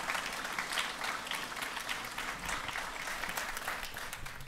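A concert-hall audience applauding at the end of a song: a dense, even patter of many hands clapping.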